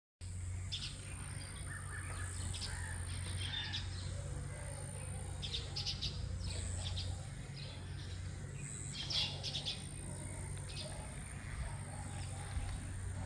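Small birds chirping in short, high, scattered calls, with clusters around the middle, over a low steady hum.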